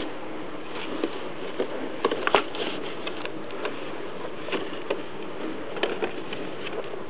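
Kittens' paws and claws tapping and scratching on a cardboard Diet Coke box in scattered light taps, busiest about two seconds in, over a steady hiss.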